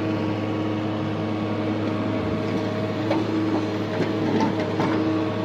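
JCB JS175 excavator's diesel engine running steadily under working load with a constant low drone and steady whining tones as the bucket digs and loads soil.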